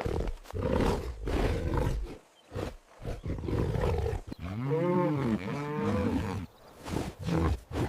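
Big cat growling and roaring: a run of rough growls, then two drawn-out roars that rise and fall in pitch about five and six seconds in, then shorter growls near the end.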